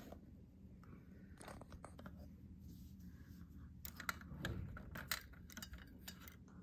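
Vintage fluorescent lamp starter clicking and rattling in its plastic holder as it is handled, with a few clicks near the start and a quick run of sharp clicks about four to six seconds in, over a low steady hum.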